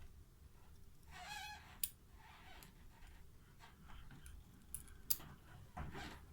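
Faint small metallic clicks and scraping of lock pins and springs being handled and taken out of a pin tumbler lock, with a few sharp ticks.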